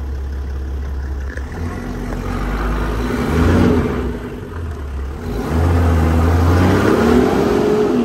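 Toyota Land Cruiser engine revving while driving off-road, heard from inside the cabin: a steady drone, then two surges, a short one about three seconds in and a longer one from about five and a half seconds on, its pitch rising and falling near the end.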